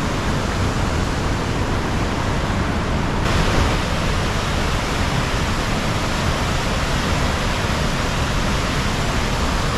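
Waterfall close by: water falling and rushing in a loud, steady hiss, turning a little brighter about three seconds in.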